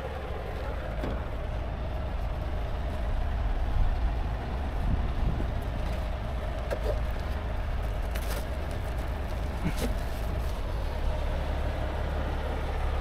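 Steady low rumble of an idling truck engine, with a few light clicks as metal strap hooks are handled around a truck wheel, about eight and ten seconds in.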